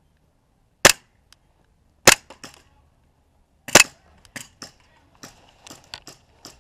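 Gas blowback airsoft pistols firing single shots: three loud, sharp cracks about a second in, just after two seconds and near four seconds, then a run of fainter shots and clicks from pistols farther off.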